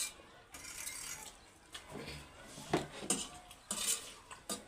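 Cutlery clinking against plates as people eat, with several short, sharp clinks.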